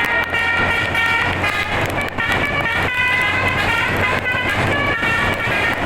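Bus telolet horn, a set of air trumpets driven by a DAV tone module, playing a tune of held notes that change pitch every second or so, with a low steady hum underneath.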